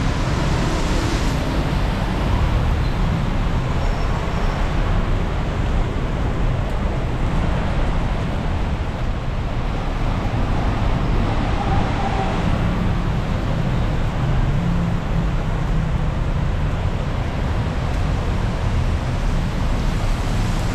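Steady traffic on a rain-soaked city road: engines and the hiss of tyres on wet asphalt, with rain falling.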